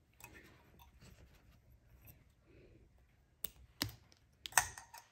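Faint rustling, then a few sharp clicks and taps from hands handling tools and materials on a fly-tying bench. Two separate clicks come just past three and a half seconds in, and a louder short clatter about four and a half seconds in.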